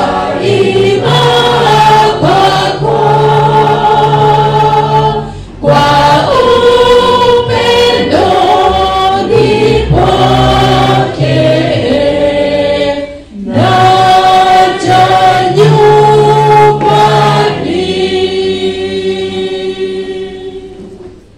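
A group of voices singing the chorus of a Swahili hymn, phrase by phrase with short breaths between lines, the singing dying away near the end.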